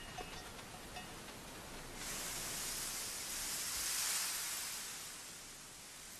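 A soft rushing hiss of outdoor ambience swells in about two seconds in, peaks near the middle and fades away again.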